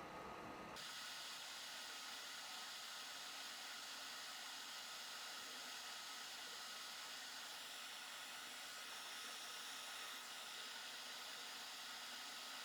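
Steady faint hiss with a thin steady high tone running through it; a lower, duller noise underneath stops about a second in.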